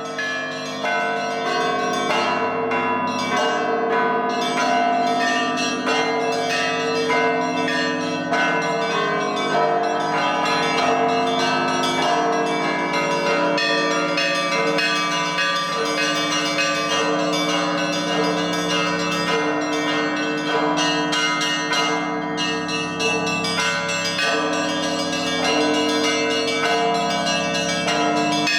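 A set of Russian Orthodox church bells ringing together in a continuous peal: small bells struck in quick succession over the long, steady ringing of deeper bells.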